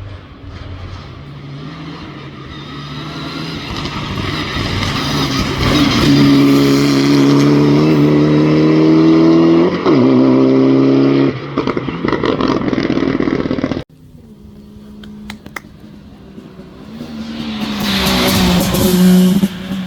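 Rally car engine at full throttle, drawing closer and louder, with a quick gear change in the middle of the loudest stretch, then fading. After an abrupt cut, a second rally car builds up and goes by loudly near the end.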